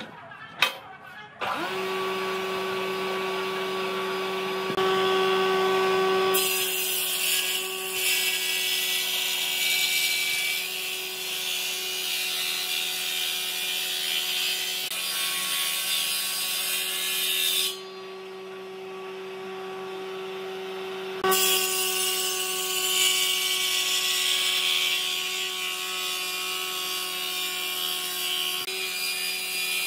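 An electric power tool running steadily at one pitch while working wood, with a harsh contact noise over the motor's hum. The contact noise drops away for about three seconds past the middle, leaving only the hum, then comes back.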